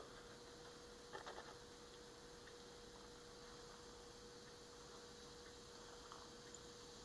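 Near silence with a faint steady hum; about a second in, a few light clicks of a glass stir rod knocking against a glass beaker as aluminium foil is poked down into the acid.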